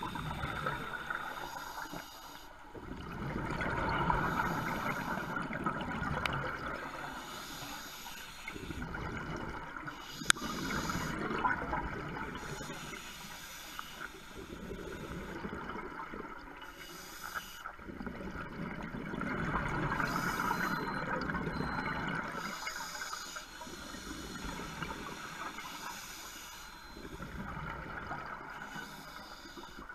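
Scuba regulator breathing underwater: hissing inhales alternate with bubbling exhales in slow cycles, a breath every five seconds or so. There is one sharp click about ten seconds in.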